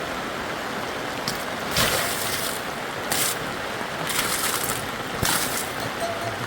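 Steady rushing water, with four short, louder swishes over it.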